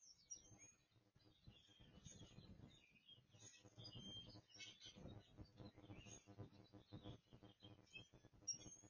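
Faint birds chirping and calling, over a low rumbling noise.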